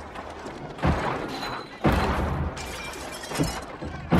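Gunfight sound effects from a film: several loud gunshots, roughly a second apart, with crashing and shattering debris between them.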